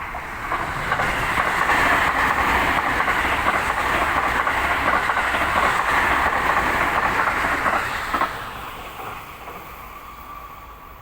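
Electric commuter train on the Seibu Ikebukuro Line passing close by, with a rapid clatter of wheels on the rails. The noise builds over the first second or two, holds loud for about six seconds, then dies away after about eight seconds.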